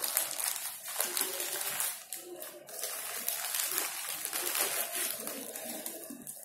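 Plastic courier mailer crinkling and rustling as hands dig into it and pull out the wrapped box, a dense crackle that thins out near the end.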